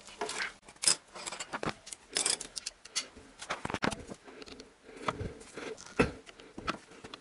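Irregular metal clicks and knocks from a wrench and its extension bars being handled and refitted while tightening a crankshaft pulley bolt.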